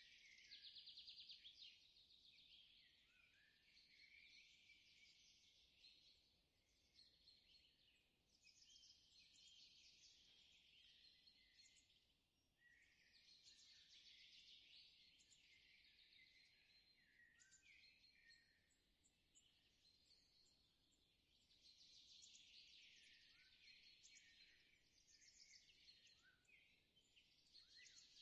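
Near silence with faint birdsong: many short chirps and trills from small birds, one after another, with no break.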